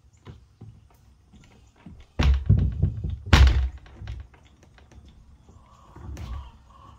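Baby chicks' light pecking and scratching taps, broken by loud thumps about two seconds in and again at three and a half seconds, with a weaker knock near the end.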